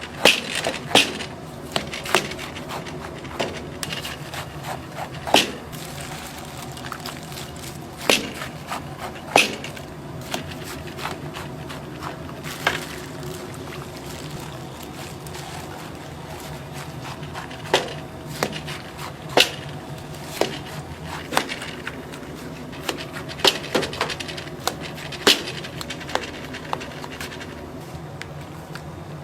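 Kitchen work at a hot dog stall: irregular sharp clicks and knocks of utensils and food handling over a steady low hum.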